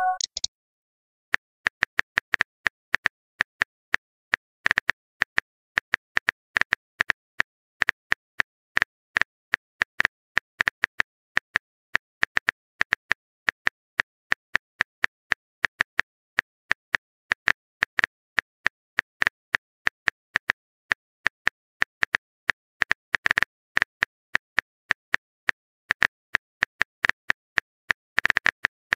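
Keyboard tap sound effects of a texting-story app, one short click per letter as a message is typed out, coming several a second at an uneven pace with brief pauses. A short electronic pop tails off at the very start.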